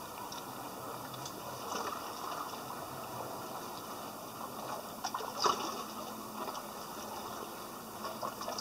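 Water lapping and splashing in a narrow rocky inlet, a steady wash with small splashes and one sharper splash about five and a half seconds in.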